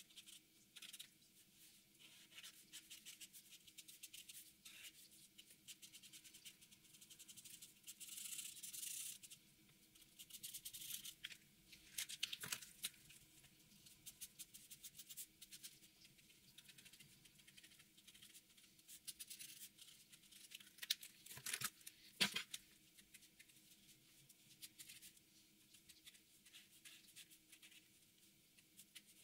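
Marker pen nib scratching across paper in many short, faint strokes, with a few louder, longer strokes through the middle.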